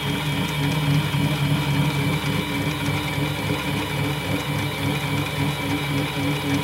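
Mini lathe running with a knurling tool pressed hard into a spinning brass bushing: a steady motor and gear hum with a regular pulsing throughout.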